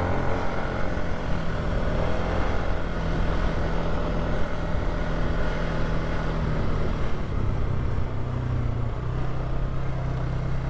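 Polaris ATV engine running steadily as the quad rides along a rough dirt trail, its note dropping slightly in pitch near the end.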